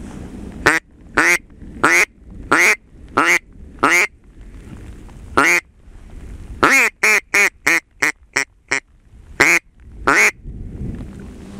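Mallard duck call blown in a hen-mallard sequence: six evenly spaced loud quacks, a pause and one more, then a faster run of shorter quacks, then two last ones near the end. Steady rain hiss between the calls.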